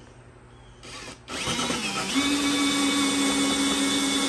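Cordless drill starting up about a second and a half in, its pitch rising quickly and then holding a steady whine as it cuts a hole through a plastic body panel for the lower radiator hose.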